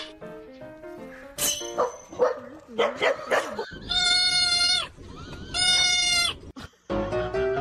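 Tabby kitten giving two loud, drawn-out meows, each held at a steady pitch for about a second, with a short gap between them.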